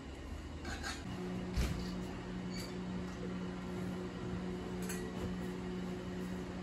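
Light knocks and clinks of kitchen work, a knife on a wooden cutting board and dishes being handled. Under them a steady low hum starts about a second in.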